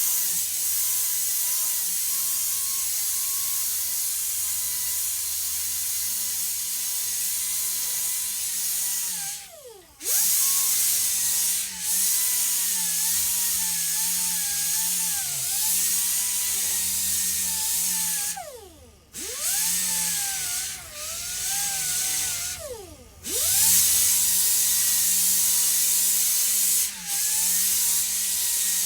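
Air-powered rotary sander running with a loud air hiss and a high whine, sanding rust off a bicycle disc brake rotor. The whine sags and wavers as the sander is pressed against the rotor. Three times it stops, its pitch falling as it winds down, then starts up again.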